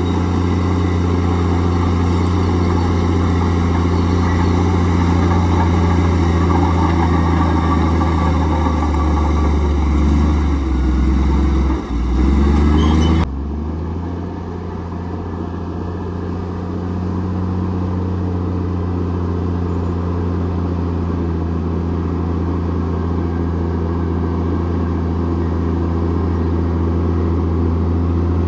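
Komatsu D58E bulldozer's diesel engine running steadily, its pitch wavering briefly about ten seconds in. A little after that the sound changes abruptly and carries on slightly quieter.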